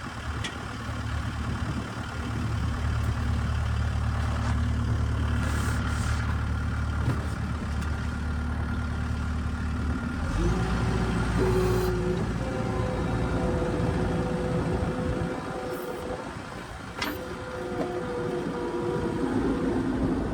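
New Holland skid steer's diesel engine running under load while plowing snow. About ten seconds in the engine note steps up and a higher steady whine joins it, with a few short knocks along the way.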